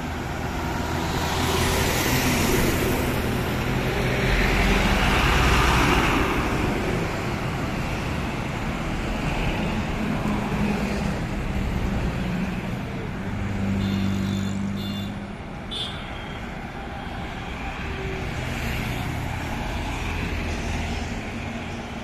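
Highway traffic: heavy goods trucks and cars passing one after another, engines running and tyres on the road. The two loudest pass-bys come about two and five seconds in.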